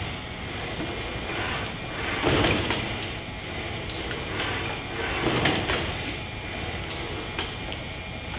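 Giant 4-metre humanoid robot side-stepping: its leg mechanisms run over a steady background hum, with two louder surges about three seconds apart as it shifts its weight and sets each foot down.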